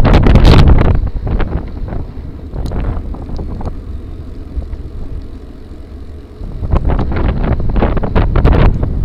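Wind buffeting the microphone of a camera riding along on a gravel bike, with rattles and knocks from the rough trail. The wind noise is heavy for about the first second, eases for several seconds, then builds again near the end.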